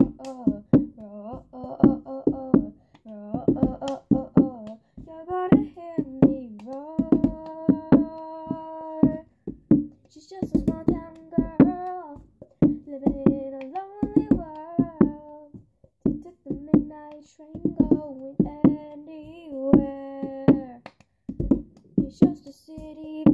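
Cup-song rhythm: hand claps and a plastic cup knocked and slapped down on a book on a tabletop in a repeating pattern, with a girl's voice singing a melody over it without clear words.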